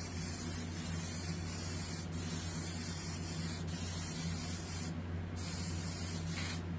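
Airbrush fitted with a fan cap spraying paint in a steady hiss, broken off briefly about five seconds in and stopping near the end.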